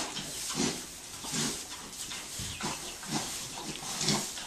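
Oxford Sandy and Black pigs grunting as they root in straw bedding. The grunts are short and come in quick succession, about one or two a second, over a light rustle of straw.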